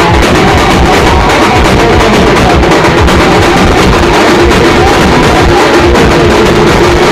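Loud banjo-party band music: several large drums beaten with sticks in a dense, driving rhythm, under an amplified Indian banjo melody.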